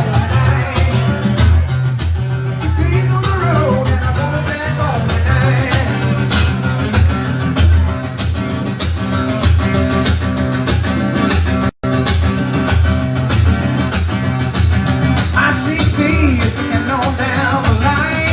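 A live band playing rock-reggae, a guitar lead over a heavy bass line and drum beat. The sound cuts out for an instant about two-thirds of the way through.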